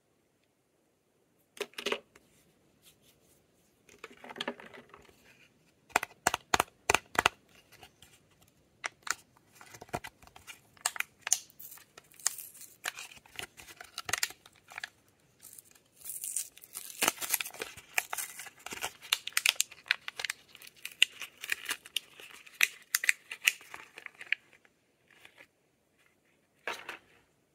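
Lip balm packaging being unwrapped by hand: plastic and paper tearing and crinkling, with sharp clicks and snaps. The crinkling is densest in a long stretch past the middle, then thins out.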